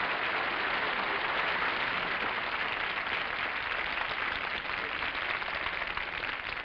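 Studio audience applauding, the clapping thinning out near the end.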